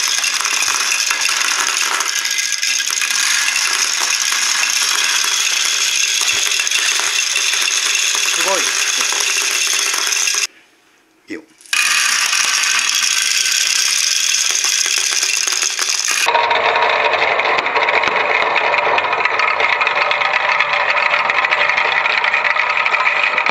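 Many small plastic balls rolling and clattering continuously through a Kumon Kumi Kumi Slope plastic marble run. They rattle around spiral trays and drop down tubes. The sound cuts out for about a second near the middle.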